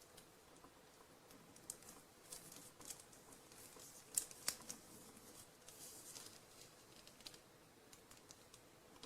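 Faint handling noise: scattered light clicks and rustles, with two sharper clicks close together about four seconds in.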